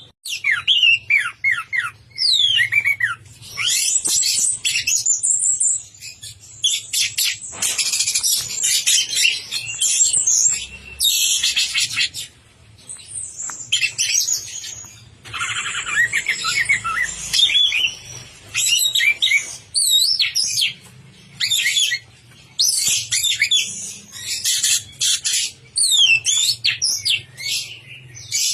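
Orange-headed thrush singing vigorously: a long, varied song of rapid whistled phrases and sweeping notes, delivered in bursts of a second or two with short pauses between.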